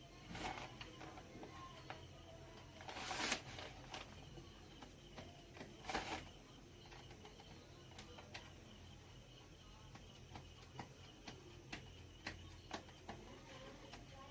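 Small clicks, taps and two short scrapes of hand tools and screws on an amplifier's metal casing while it is being opened up. The scrapes come about three and six seconds in, with light ticks scattered between.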